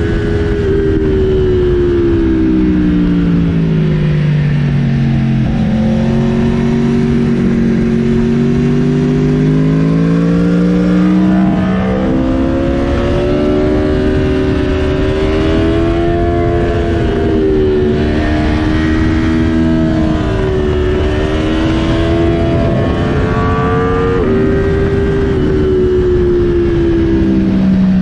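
Aprilia Tuono sport motorcycle engine under way. Its pitch falls for the first few seconds, holds low, then climbs and rises and falls repeatedly as the rider works the throttle, with a few abrupt pitch changes at shifts. Steady wind and road rush runs under the engine.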